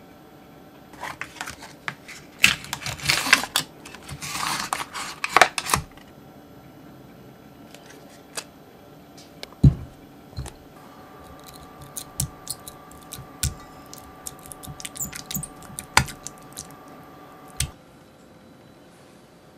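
Crinkling and rustling as a plastic tub of cream cheese is opened, then a dull thump and a run of light clicks and scrapes as the cream cheese is scraped out of the tub into a glass measuring jug.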